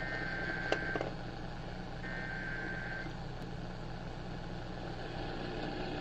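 Emergency Alert System SAME header data bursts coming through an AM radio's speaker: two one-second bursts of buzzy, warbling digital tones about two seconds apart, over steady AM static hum. A single click comes just under a second in.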